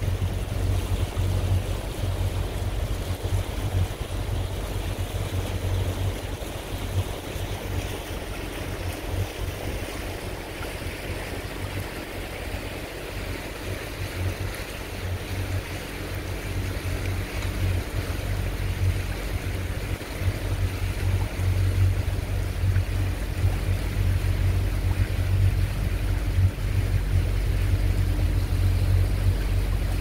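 Wind buffeting the microphone on a moving motorboat, over water rushing along the hull and the motor's low drone. The buffeting eases in the middle and picks up again in the second half.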